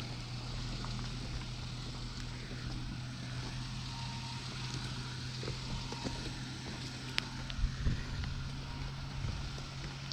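Off-road 4x4's engine running steadily at low speed while it crawls up a rocky riverbed, with a few sharp clicks and knocks from the rocks about seven to eight seconds in.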